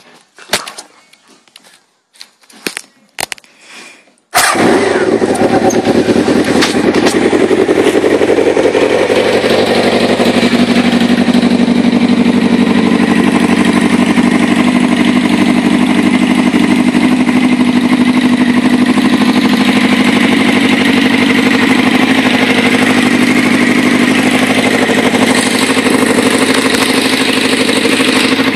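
Honda CB700 motorcycle's inline-four engine starting abruptly about four seconds in, after a few clicks and knocks. It runs a little fast at first, then settles within a few seconds to a loud, steady idle.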